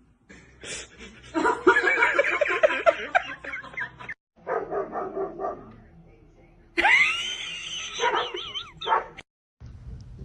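A dog barking and yipping in quick runs of short calls, then giving a longer wavering, whining call near the end.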